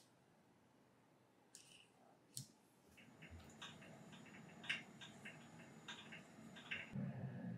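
Faint, irregular clicking and tapping of a utensil stirring melted chocolate against the side of a glass bowl set over a pot (double boiler), several small ticks a second from about three seconds in.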